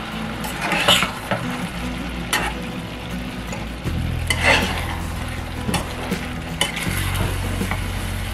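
A spoon stirring and scraping through a stainless steel pan of whole plums, cranberries, garlic and spice mix cooking in oil, with a low sizzle. Several separate scraping strokes stand out over a low steady hum.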